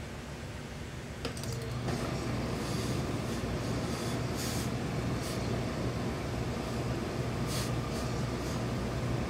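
Steam iron hissing in short bursts as it presses suit trousers, over a steady machine hum that gets louder with a click about a second in.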